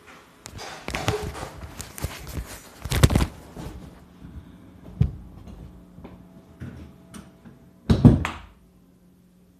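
Handling noise from the recording phone: irregular knocks, rubbing and thumps, with two louder thuds about three and eight seconds in. A low steady hum comes in about halfway.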